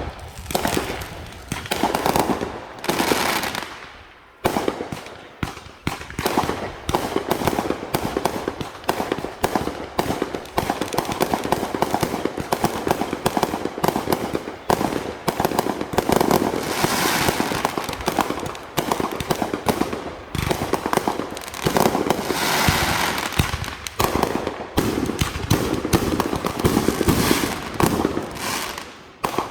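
Fireworks going off in a continuous rapid crackle of pops and bangs, with a short lull about four seconds in.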